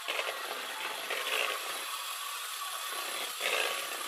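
Electric hand mixer running, its beaters whisking eggs and melted butter in a bowl, the sound surging and easing as the beaters move through the mixture.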